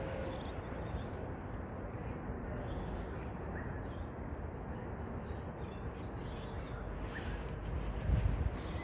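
Faint bird calls a few times over a steady low outdoor rumble, with a brief low swell of rumble near the end.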